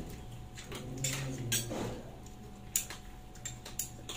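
Cutlery clinking against dishes during a meal, a few scattered sharp clicks of utensils on bowls and plates.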